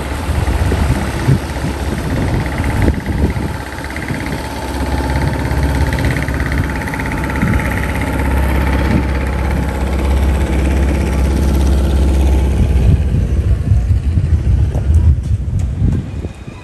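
Small outboard motor running steadily as its flat-bottomed boat passes close by, a constant engine drone with a low rumble that fades in the last few seconds.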